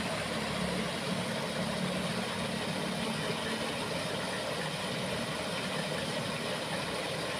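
Steady rushing of water spilling over a low concrete weir in a canal, with a faint low hum underneath.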